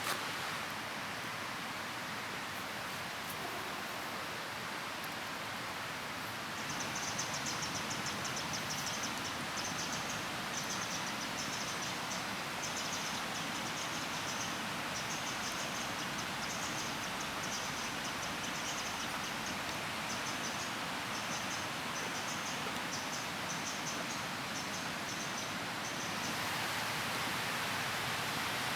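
Outdoor ambience: a steady, even hiss, with a high, rapid chirping in short trains that starts about six seconds in and stops a few seconds before the end.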